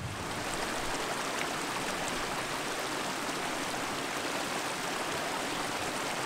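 Shallow mountain stream rushing over rocks, a steady even rush of water.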